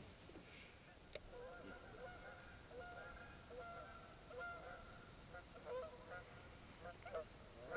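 A flock of geese honking faintly, many short repeated calls overlapping and growing busier toward the end.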